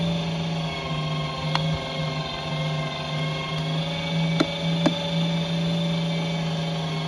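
LEM Mighty Bite electric meat grinder running steadily on its stuff setting, its motor humming as it pushes sausage meat out through the stuffing tube into the casing. A few light clicks sound over it.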